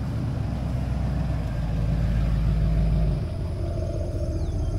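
Diesel tractor engine running, a steady low drone that drops off abruptly about three seconds in.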